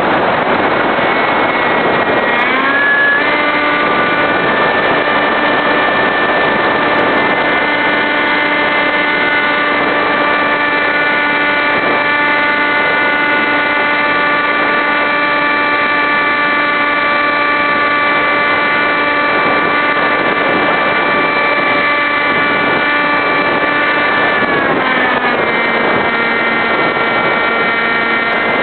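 Skysurfer RC model plane's electric motor and propeller, heard from the onboard camera. It opens with rushing wind noise, then the motor winds up to a steady buzzing whine about two seconds in. Near the end the whine drops slightly in pitch and carries on.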